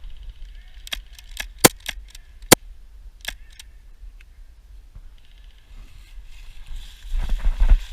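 A run of about nine sharp, irregular clicks and snaps over two or three seconds, two of them much louder cracks, followed near the end by low rumbling and knocking.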